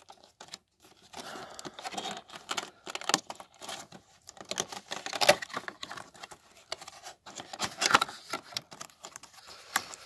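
Cardboard figurine box being opened by hand: irregular rustling, scraping and tapping as the flaps and the inner cardboard insert are pulled out, with a couple of louder knocks about five and eight seconds in.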